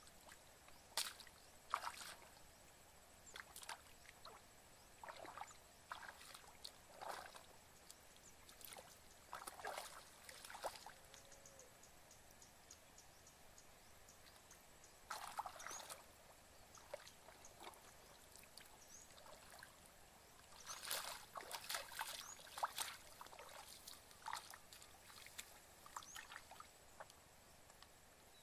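Shallow water sloshing and splashing in scattered short bursts as someone wades through it and works a basin in it.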